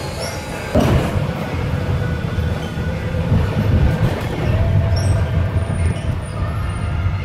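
Inside a moving bus: steady low engine and road rumble with rattling, and a thin steady whine. A loud clunk comes about a second in.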